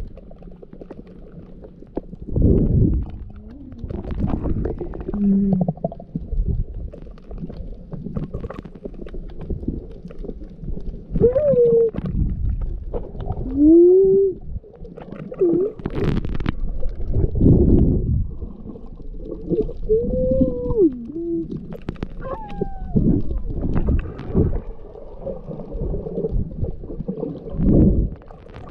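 Snorkelling audio played backwards: muffled gurgling, sloshing water and breath noise, with several short wavering voice-like glides and a few sharp clicks.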